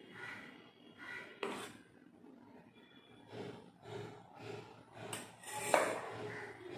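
A metal spoon scraping and clinking against a stainless steel plate as powder is heaped onto it, with a sharp click about a second and a half in and a louder knock near the end.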